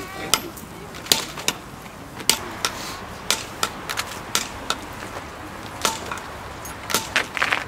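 A series of irregular sharp knocks or clicks, about one or two a second, some coming in quick pairs.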